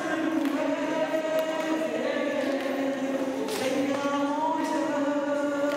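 A choir singing a slow hymn together, the voices holding long notes and sliding from one note to the next.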